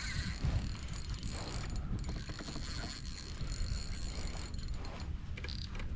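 Spinning reel ratcheting steadily with a fast run of fine clicks as a hooked redfish is fought on the line.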